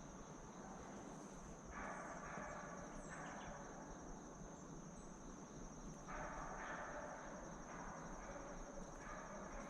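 Crickets chirring in a steady, fast, high-pitched trill, faint, with a few short patches of softer hissing noise about two, six and nine seconds in.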